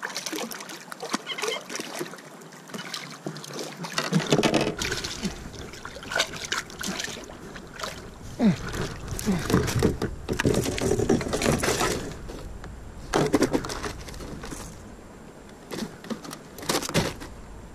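A large American shad thrashing and splashing at the side of a canoe while it is landed by hand, with irregular splashes and knocks against the canoe's hull and gunwale.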